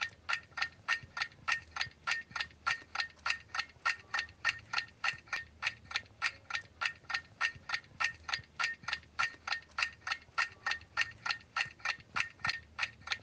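Ticking clock sound effect: a steady, even tick about three times a second, counting down the time to answer.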